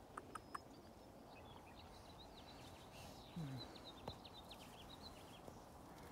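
Near silence, with faint small-bird chirping: many quick high notes in a loose run for several seconds. A few soft clicks come right at the start, and a brief low falling sound a little past halfway.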